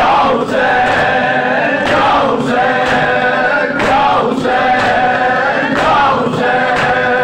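A man chants a noha, a Shia mourning lament, into a microphone while a group of men sing with him. Regular sharp slaps of hands on chests (matam) keep time, about two a second.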